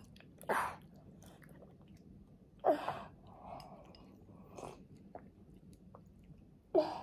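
A toddler chewing and drinking soup straight from a small bowl tipped up to his face, with four short loud mouth sounds about two seconds apart.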